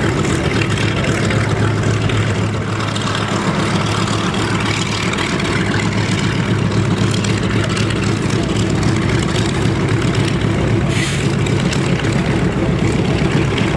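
Piston aircraft engines running steadily at idle and taxi power, with a deep, even hum: a twin-engine B-25 Mitchell bomber taxiing out, and a single-engine trainer's propeller turning close by.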